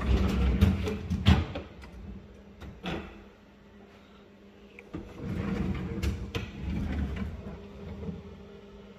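A refrigerator being handled: rustling and scraping with several sharp clicks and knocks, like its doors or drawers moving. It comes in two spells, over the first second and a half and again from about five to eight seconds in, with a faint steady hum underneath.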